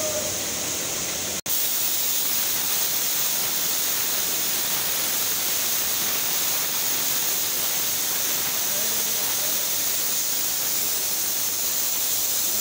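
Compressed-air spray gun hissing steadily as it sprays glaze onto ceramic basin pedestals, with a brief break about a second and a half in.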